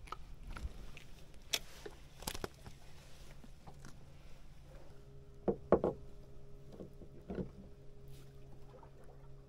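Scattered knocks and clicks of gear being handled on a small fishing boat, a cluster of three close together a little past halfway, over a low steady hum that firms up with an added higher tone about halfway through.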